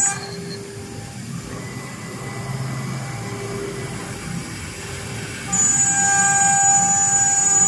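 Twin spindles of a CNC wood router: their steady high-pitched whine drops away at the start, leaving a quieter, rougher low mechanical noise from the machine, and the high whine comes back about five and a half seconds in.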